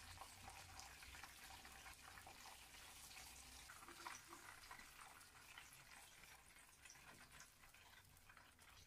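Corn dogs deep-frying in a pan of hot oil: faint, steady sizzling with dense, fine crackling.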